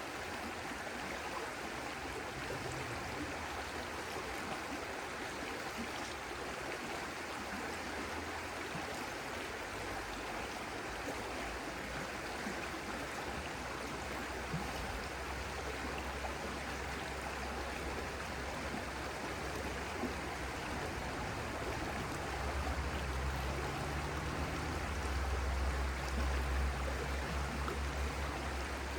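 Stream water flowing steadily. A low rumble swells underneath it from about three-quarters of the way in.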